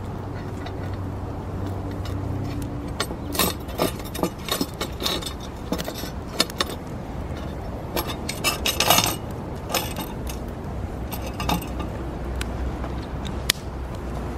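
Steel rods clinking and scraping against a black iron plate as a pot stand is pieced together: a series of irregular metallic clinks, the loudest cluster about nine seconds in.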